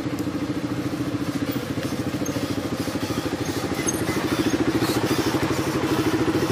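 Quad bike engines idling and running with a steady, fast pulsing beat, growing a little louder about halfway through as a quad draws up close.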